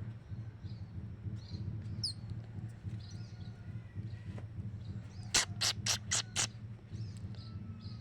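Baby plantain squirrel (tupai kelapa), so young its eyes are still closed, giving a quick run of five sharp, high squeaks about a second and a half in, after a faint chirp earlier, over a steady low hum.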